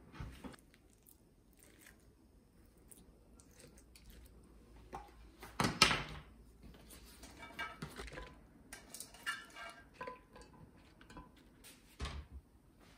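Kitchenware being handled: scattered light knocks and clinks of dishes and utensils, the loudest knock about six seconds in, followed by a few short ringing clinks.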